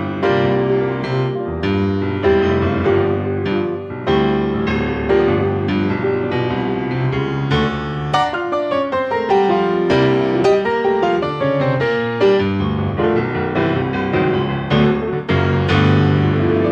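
Background piano music: a gentle, steady run of notes and chords.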